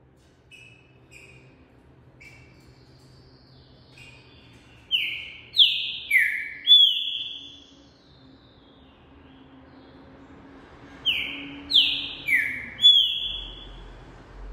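Green-winged saltator (trinca-ferro) singing its 'pampo' song: a few soft short notes, then a loud phrase of four clear whistled notes, repeated once about six seconds later.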